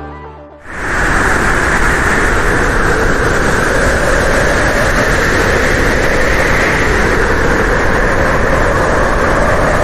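Strong wind blowing steadily, a loud, even rushing that starts about a second in as a short music intro fades out.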